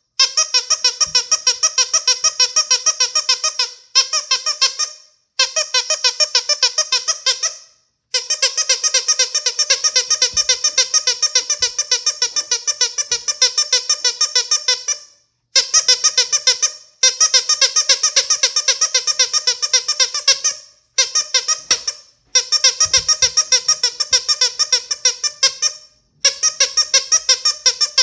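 A squeaky dog toy squeaked over and over, about five squeaks a second, in runs of several seconds broken by short pauses.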